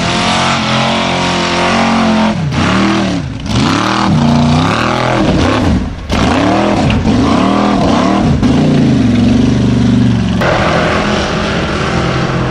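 Formula Offroad buggy engine at full effort on a steep dirt climb, the throttle pumped so the revs rise and fall again and again, then held high. The sound changes abruptly a few times where different runs are cut together.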